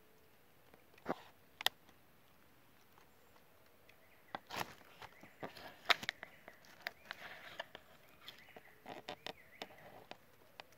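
Faint scattered clicks and rustling from small movements inside a hunting hide, busier from about four seconds in.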